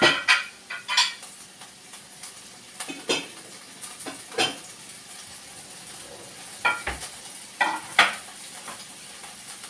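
Glass dishes clinking and knocking as they are taken down from a cupboard and set on a stone counter: about nine separate clinks, a few with a brief glassy ring.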